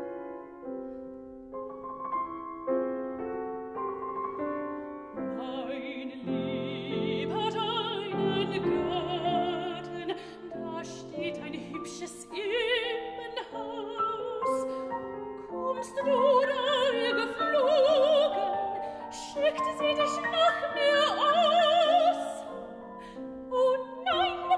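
A German art song (Lied) for soprano and grand piano: the piano plays alone for about the first five seconds, then the soprano enters, singing with a wide vibrato over the piano accompaniment.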